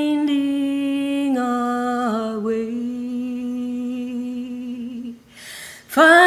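A woman singing unaccompanied, holding one long note that steps down in pitch twice, then breaking off briefly before a new, louder phrase starts near the end.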